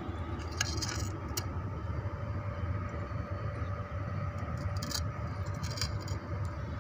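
Steady low background rumble with a faint steady hum, and a few light clicks and clinks: about a second in, and again around five and six seconds in.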